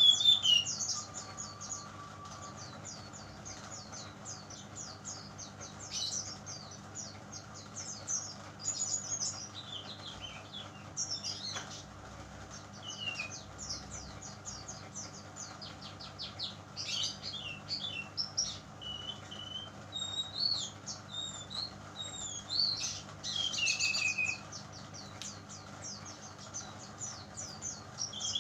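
Young brown-chested jungle flycatcher (SRDC), still spotted-plumaged, singing: long runs of rapid high twittering chirps broken by short whistled phrases. It is a raw bird still learning its song.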